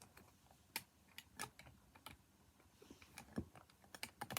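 Plastic Lego bricks clicking and knocking as they are handled and pressed together, in faint, irregular clicks.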